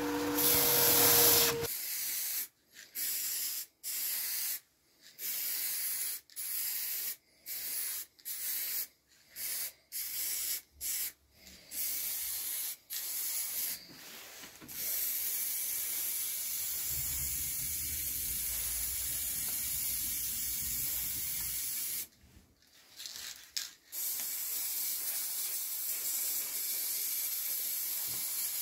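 A belt-and-disc sander runs with a steady whine, grinding a small wooden piece against its disc, until about two seconds in. Then an aerosol can of black spray paint hisses: about a dozen short bursts, then longer unbroken sprays with a brief stop-start in the last third.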